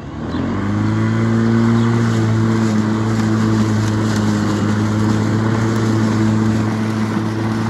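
Viking MA 400 cordless lawn mower's electric motor and blade spinning up with a rising whine over the first half-second, then running at a steady pitch while mowing grass.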